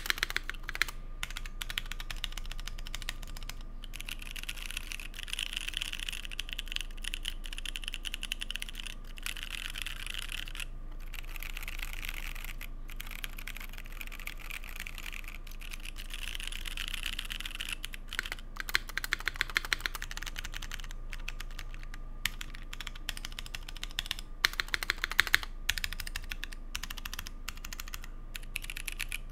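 Typing on a Keycult 1/60 mechanical keyboard with C3 Equalz Dragonfruit tactile switches, an aluminium plate and GMK keycaps. A steady run of quick keystrokes goes on throughout, with scattered louder single key presses.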